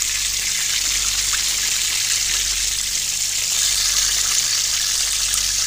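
Sliced bitter gourd sizzling steadily as it shallow-fries in hot oil, with a few faint pops.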